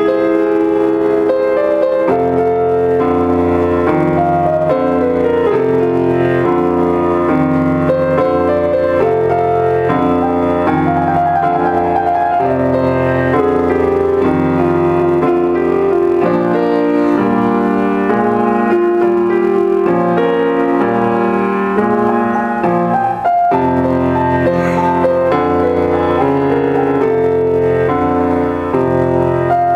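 Solo grand piano playing, with low bass notes held under a moving melody and a brief break about two-thirds of the way through.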